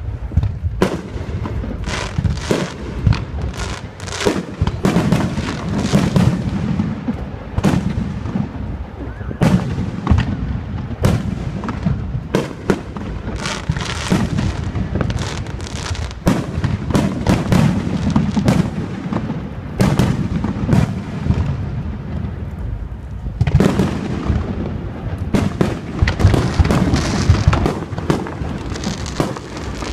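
Fireworks display: a rapid, near-continuous string of aerial shell bursts, sharp bangs several a second over a rolling low rumble, with a brief lull a little past the middle before the barrage builds again.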